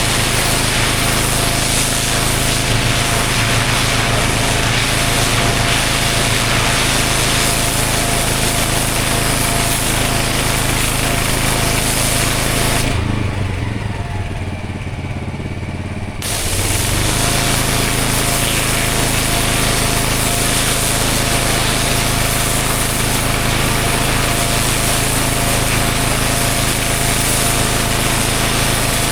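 Pressure washer running steadily: its engine under a loud hiss of the high-pressure water jet on block paving. About halfway through, the spray stops for about three seconds while the engine keeps running, then it starts again.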